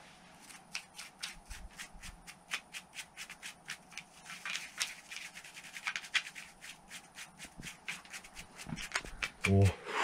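Stiff-bristled climbing brush scrubbing the holds on a sandstone boulder, in rapid repeated strokes about five a second. A short grunt or breath comes near the end.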